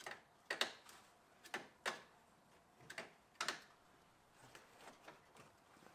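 Irregular light clicks and knocks of hands handling parts in an old snowmobile's engine compartment, about half a dozen, mostly in the first four seconds.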